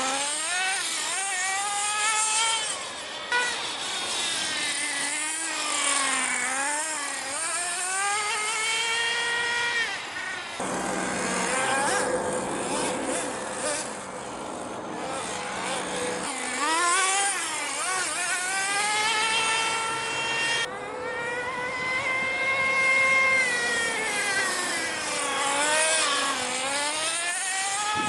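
Small two-stroke nitro glow engine of a radio-controlled car revving up and down as the car is driven hard, its high whine rising and falling in pitch again and again. For about five seconds in the middle the whine gives way to a rougher, noisier running.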